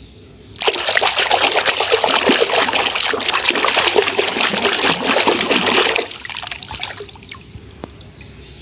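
Water pouring and splashing hard into a plastic basin while a hand rinses a toy in it. It starts suddenly about half a second in and cuts off about six seconds in, leaving a weaker trickle and a few drips.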